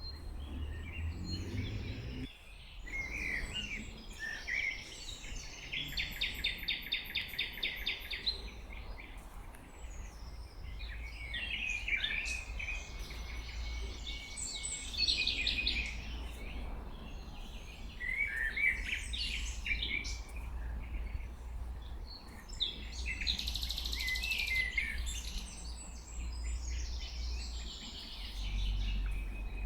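Several songbirds singing in a spring forest, phrase after phrase, including a fast trill of rapidly repeated notes about six seconds in, over a steady low rumble.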